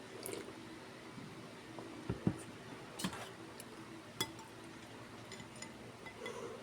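Eating utensils clinking against a bowl or plate a few times, with a couple of soft low thumps a little past two seconds in.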